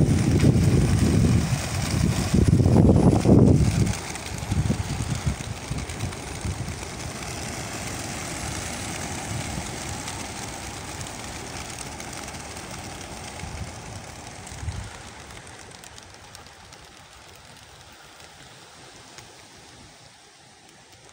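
Wind buffets the microphone in heavy gusts for the first few seconds. Then comes a steady rushing of many pigeons' wings from a released flock of young racing pigeons, fading slowly as the flock flies off.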